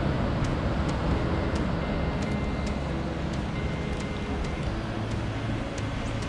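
Vehicle driving on the road: a steady low rumble of engine and road noise, with faint ticks scattered through it.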